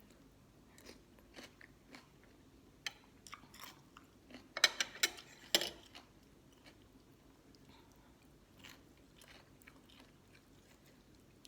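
Close-up chewing and crunching on pickled sea crab, the shell and legs cracking between the teeth. Quiet chewing with a cluster of sharp, loud crunches around the middle.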